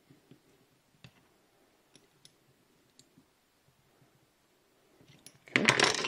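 Faint, scattered small metal clicks of a hex key and open-end wrench on the tap holder's set screw and lock nut, then a short loud clatter of metal tools on the plastic cutting board near the end.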